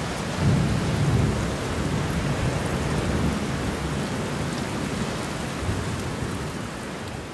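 Steady rain with low thunder rumbles swelling now and then, slowly fading toward the end.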